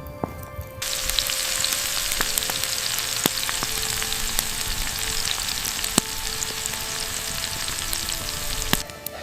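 A steady sizzling hiss full of small crackles, like food frying. It starts abruptly about a second in and cuts off just before the end.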